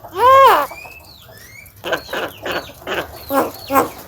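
Javan myna calling: one loud arched note just after the start, a couple of thin whistled glides, then from about two seconds in a quick run of short rising-and-falling chattering notes.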